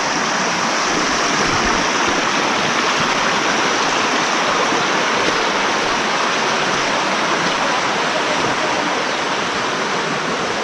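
Stream water rushing steadily, a constant even hiss of flowing water with no breaks.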